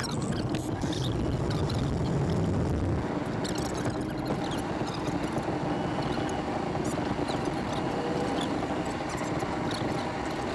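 Steady rushing noise of a vehicle heard from inside its cabin, louder and deeper in the first few seconds, with scattered faint clicks.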